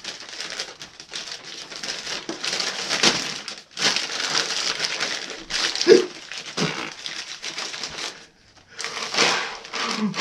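Heavy breathing in and out of a brown paper bag, the paper crinkling with each breath in a run of swells about a second apart.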